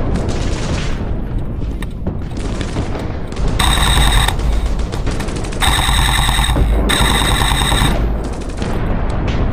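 Automatic electric airsoft gun firing three short full-auto bursts, each a motor-and-gearbox whine with rapid clatter, starting and stopping sharply. The first burst comes about three and a half seconds in, and the other two follow close together.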